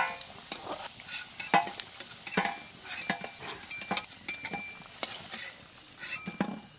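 Flat metal spatula scraping and tapping in an iron kadhai as fried potato pieces are lifted out of hot oil and set on a steel plate, with short metallic clinks and a faint sizzle of the oil.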